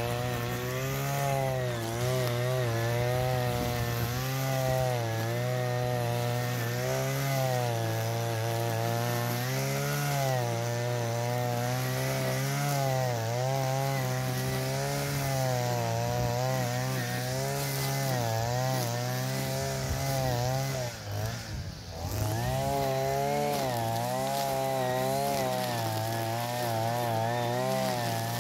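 Modified petrol brush cutter running under load as it cuts tall grass, its engine pitch wavering up and down with the throttle. About three-quarters of the way through, the revs drop briefly and then pick back up.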